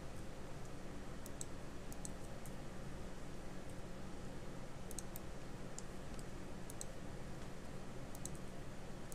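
Scattered sharp computer mouse and keyboard clicks, several in quick pairs, over a steady low background hum.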